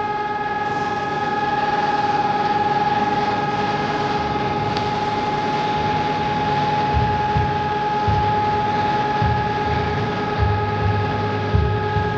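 Hörmann ECN 1200 electronic siren sounding a steady, unwavering tone. Low rumbling comes and goes underneath from about seven seconds in.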